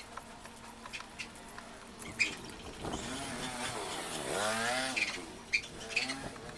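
A motor or engine running for about two seconds near the middle. Its pitch falls and then rises again.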